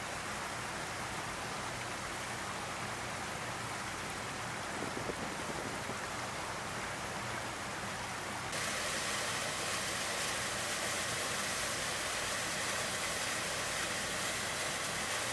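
Rushing water of a rocky mountain creek, a steady hiss. About eight and a half seconds in it cuts abruptly to a louder, brighter rush of a small waterfall pouring into a pool.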